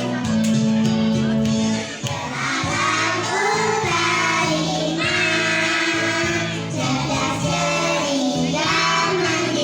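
A group of children singing together over instrumental backing music; the voices come in about two seconds in, over held accompaniment notes.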